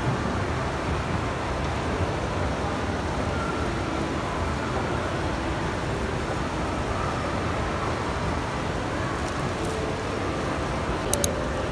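Steady low rumble and hiss of an inclined moving walkway running. Two sharp clicks come close together near the end.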